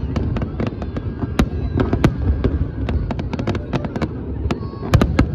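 Fireworks display: a rapid, irregular string of sharp cracks and bangs over a steady low rumble of distant bursts, loudest near the end.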